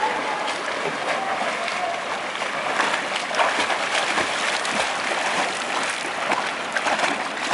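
Water splashing and churning as a swimmer kicks along the surface of a pool: a steady wash of small splashes.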